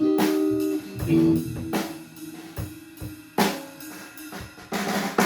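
Rock band instruments playing loosely: guitar chords ringing out over drum kit hits with several cymbal crashes, the playing thinning out toward the end.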